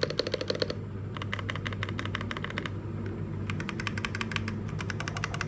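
Typing on an Xtrike-Me GK-916 mechanical keyboard with red (linear) switches, heard up close: rapid runs of keystrokes with brief pauses.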